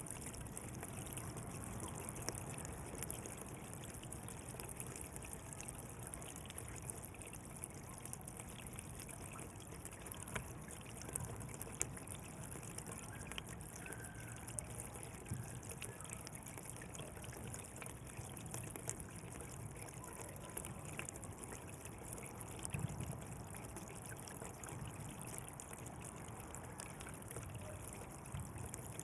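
Water flowing in a canal, a steady trickling and babbling with small splashes.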